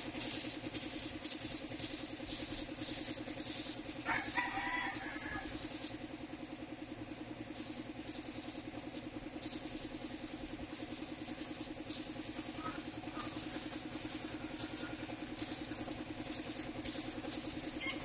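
Paint spray gun hissing in many short, repeated bursts as the trigger is pulled and released, spraying blue paint, over a steady low hum. A short pitched call sounds about four seconds in.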